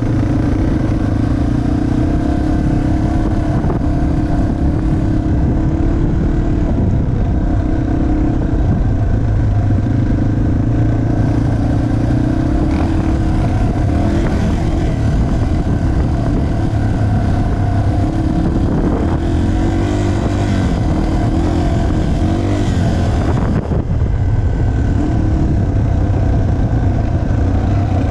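Yamaha TTR 230's single-cylinder four-stroke engine running under way on a dirt trail, its pitch rising and falling with the throttle, with a couple of brief rev-ups about two-thirds of the way through.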